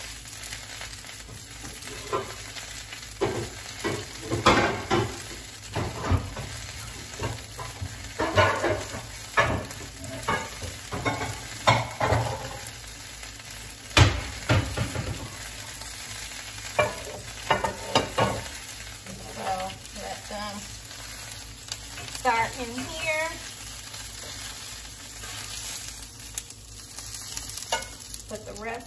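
Mahi-mahi fillets sizzling as they pan-sear in a frying pan, under repeated sharp clinks and knocks of cookware as a glass baking dish and metal tongs are handled.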